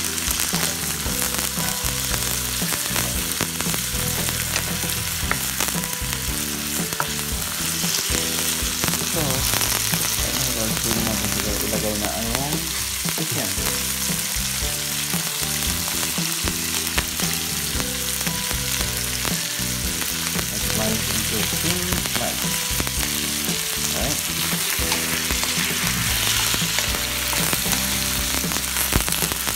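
Shrimp, onion and garlic sizzling steadily in hot oil in a wok.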